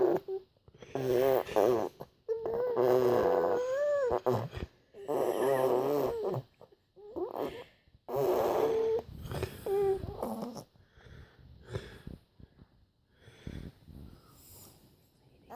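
A series of drawn-out, wavering vocal noises with short breaks between them, one sliding up in pitch about four seconds in; they grow fainter and sparser over the last few seconds.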